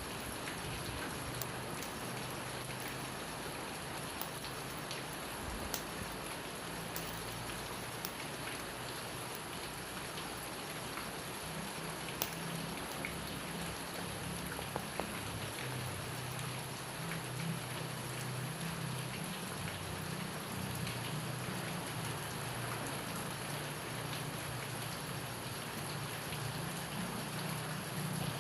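Steady rain falling, with scattered sharp crackles from a wood fire and a soft low rumble.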